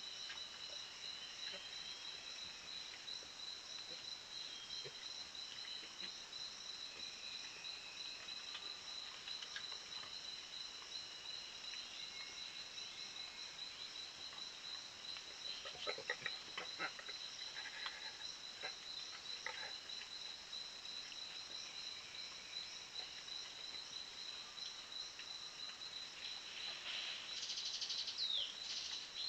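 Forest insect chorus: a steady, high-pitched drone that never lets up, with faint whistled bird calls over it. A few short clicks and knocks come about halfway through, and louder gliding bird calls come near the end.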